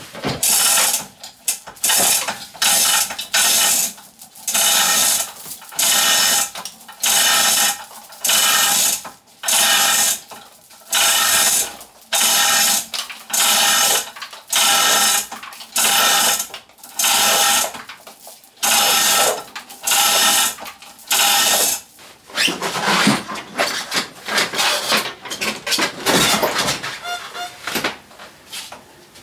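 Hand ratchet worked in steady back-and-forth strokes, about one a second, each stroke a short burst of rapid metallic clicking as it turns a bolt. The strokes turn irregular and jumbled about 22 seconds in.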